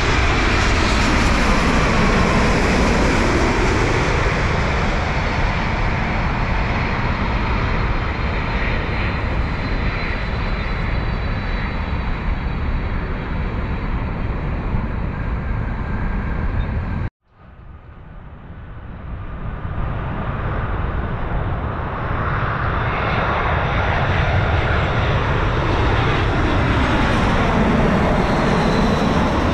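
Jet airliner on final approach passing low overhead, its engine roar sliding down in pitch as it goes by, then slowly fading. An abrupt cut breaks it off, and an Airbus A320-family jet's roar builds steadily as it comes in overhead.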